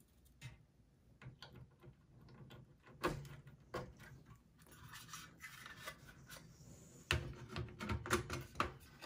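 Small handling noises of a CPU cooler's fan cable being plugged into a PC motherboard and the heatsink and fan shroud being set down into the metal case. Scattered clicks and light rubbing, with a sharper knock about three seconds in and a cluster of knocks near the end.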